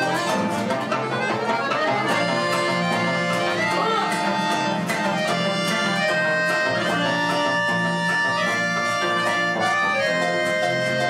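An accordion, a harp and two acoustic guitars playing an instrumental piece together, the accordion's held notes carrying the melody over the plucked strings.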